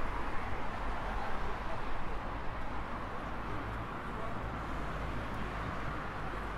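Steady road traffic noise: an even hiss of passing cars with a low rumble underneath.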